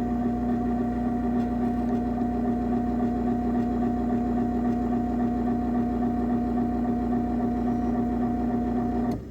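Craftsman 139.53915DM half-horsepower garage door opener running a closing cycle: a steady motor hum with a higher whine over it, cutting off near the end.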